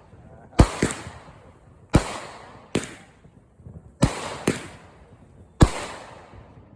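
Aerial fireworks going off: about seven sharp bangs over six seconds, some in close pairs, each fading out quickly.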